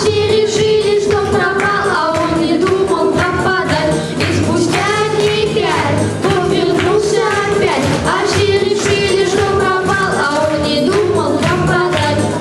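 Children singing a pop song together over a backing track with a steady beat.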